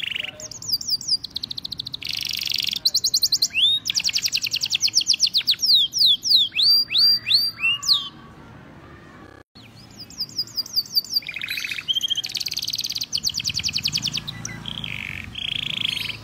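Male canary singing in fast rapid trills and quick series of repeated down-slurred notes, pausing for about two seconds midway before starting again.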